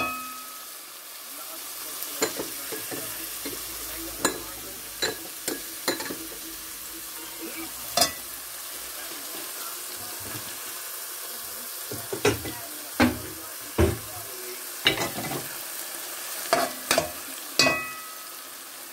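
Thick tomato and onion stew sizzling in a metal pot while a metal spoon stirs it. The spoon scrapes and knocks against the pot in irregular sharp clicks over a steady frying hiss.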